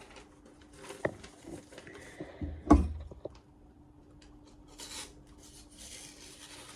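Handling noises of a blade and tools on a workbench: a few light knocks, one heavier thud about three seconds in, then soft rubbing and scraping, over a faint steady hum.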